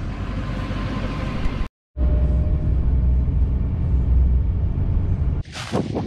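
Vehicle engine and road rumble, steady and low. It drops out abruptly for a moment about two seconds in and comes back heavier. Near the end, gusts of wind buffet the microphone.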